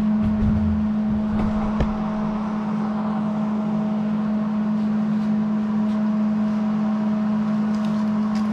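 Steady electrical hum and buzz of shop equipment, a constant low tone with fainter higher tones above it. A few dull knocks and a sharp click sound in the first two seconds.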